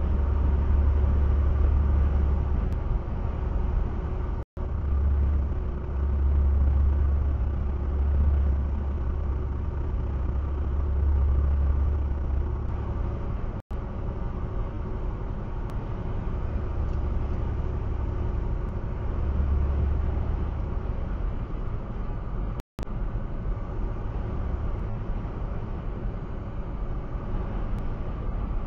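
Steady low road and engine rumble of a vehicle cruising at freeway speed, about 64 mph, picked up by a dashcam's microphone inside the vehicle. The audio cuts out for a split second three times, about nine seconds apart.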